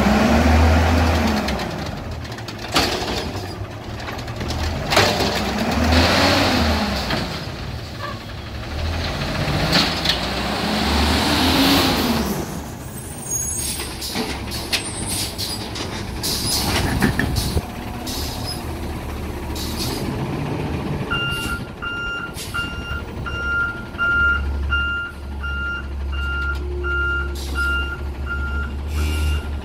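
Autocar WX garbage truck's engine revving up and dropping back three times to power the Amrep automated side-loader's hydraulic arm, with sharp air hisses between the revs. About two-thirds through, a warning beeper starts, about two beeps a second, as the arm lifts the cart.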